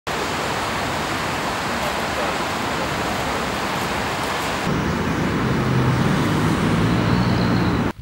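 Fountain water jetting and splashing down into its basin, a steady hiss of falling water. About halfway through a low steady hum joins it, and both cut off suddenly near the end.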